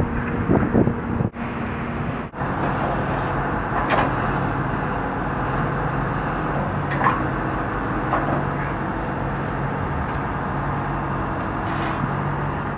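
Steady diesel engine rumble of heavy construction equipment running, with a few short sharp knocks and squeaks over it; the sound cuts out briefly twice in the first few seconds.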